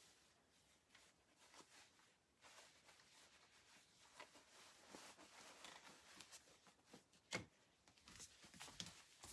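Faint rustling of cloth as an apron is pulled and smoothed onto a dress form, with scattered soft clicks and one sharper knock about seven seconds in.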